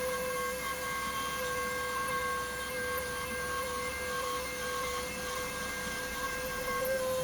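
CNC router spindle whining at one steady high pitch while milling a solid-core board, over a hiss of cutting. The pitch steps up slightly near the end.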